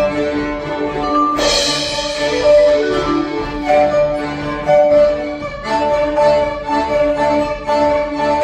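Live chamber quartet playing a bluegrass tune: violin, accordion, cello and vibraphone with drum kit, in sustained and repeated notes. A crash from the percussion lands about a second and a half in.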